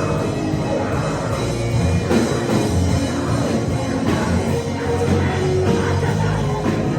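Music with drums and sustained low notes.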